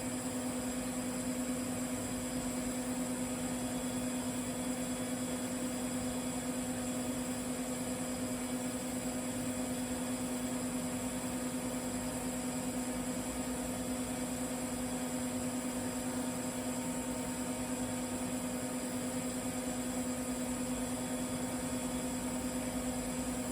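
TIG welding arc burning steadily on carbon steel pipe: a constant buzzing hum with a hiss over it, unchanged throughout.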